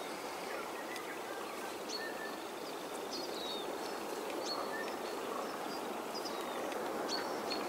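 Steady outdoor background noise with brief, scattered bird chirps every second or so.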